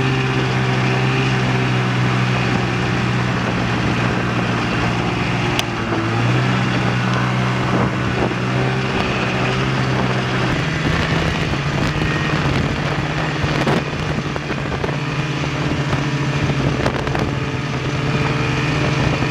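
Snowmobile engine running steadily while riding, heard from the driver's seat. The engine note dips briefly about six seconds in and steps up in pitch about ten seconds in.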